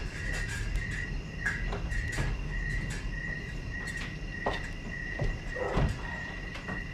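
Steady high chirping of crickets, most likely a recorded sound effect played over the stage, which stops as the dialogue resumes. Scattered knocks and rustles of actors moving and a cloak swishing sound over it.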